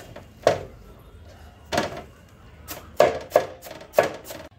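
Large kitchen knife chopping a cabbage on a wooden cutting board: a run of about six sharp, unevenly spaced chops, bunched closer together in the second half.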